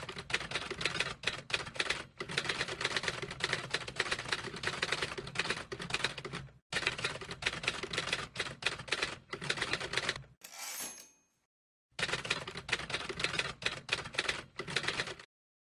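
Manual typewriter keys clacking in fast runs of strikes, broken by short pauses. About ten and a half seconds in, a short bell ring and the carriage return sound once before the typing starts again.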